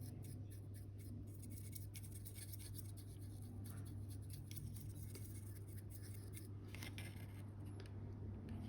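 Faint, irregular scratching of a stiff old paintbrush dry-brushing the tyres of a small scale model, over a steady low hum.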